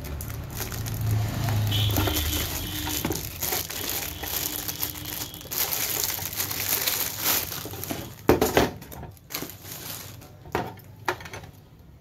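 Plastic wrapping crinkling and cardboard rustling as a switch-socket board is pulled from its box and unwrapped, followed by a few sharp knocks about eight seconds in.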